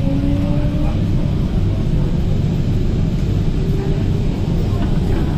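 MTR K-Train heard from inside the carriage as it pulls out of a station: a steady low rumble of wheels and running gear, with a faint, slightly rising traction-motor whine in the first second.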